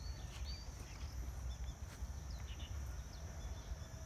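Low, uneven rumble of wind buffeting the microphone, with small birds giving short, high chirps several times.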